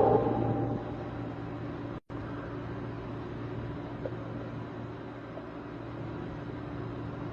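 A steady low rumbling hum. A louder sound fades out in the first second, and the audio cuts out completely for an instant about two seconds in.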